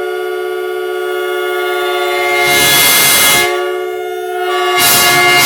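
Vixen VXH 4114 four-trumpet air train horns sounding one long blast: a chord of several steady tones. The blast swells louder twice with a rush of air, about two and a half seconds in and again near the end.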